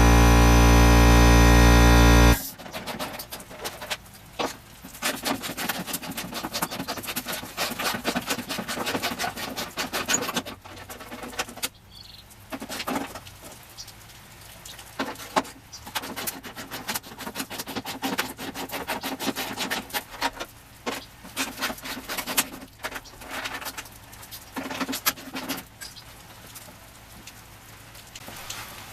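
A loud, steady machine drone with several pitched tones cuts off suddenly about two seconds in. After it comes a long stretch of dense, irregular clicking and light metallic clatter from hand work on the car's body hardware.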